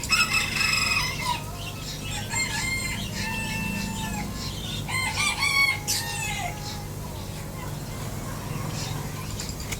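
A series of high animal calls, some held on one note and some bending up and down, over a steady low hum.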